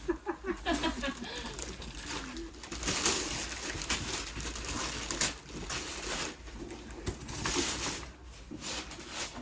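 Wrapping paper rustling and tearing as a present is unwrapped, in long noisy stretches, with brief voices near the start.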